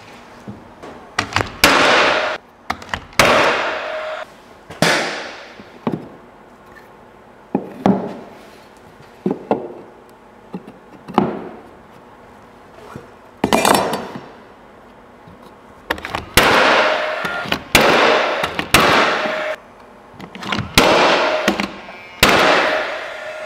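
Paslode 16-gauge angled finish nailer firing nails into door trim: about fifteen sharp shots at uneven intervals, some in quick pairs, each trailing off over about half a second.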